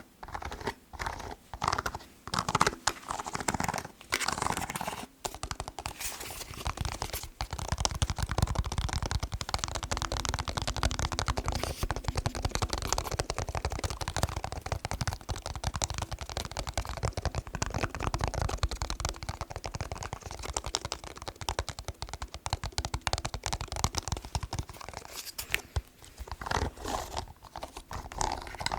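Fast fingernail and fingertip tapping on a plastic TV remote, in short runs at first, then a long unbroken stretch of very rapid tapping that breaks into short runs again near the end.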